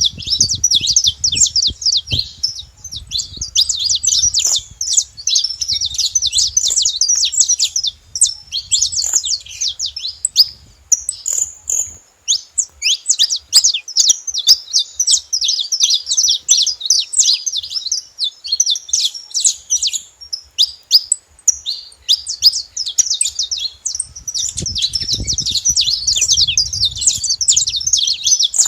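Saffron finch singing: long, continuous runs of fast, high chirping notes, broken by brief pauses about ten and twenty-two seconds in. A low rumble sits under it near the start and again near the end.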